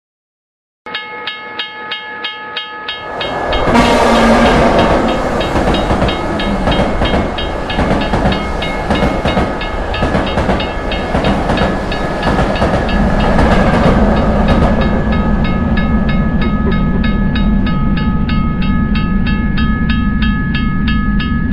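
Railroad crossing bell starts ringing about a second in with steady, rapid strikes. A train comes through from about three seconds, loudest near four seconds, and keeps passing with a steady rumble and wheel clatter while the bell goes on ringing.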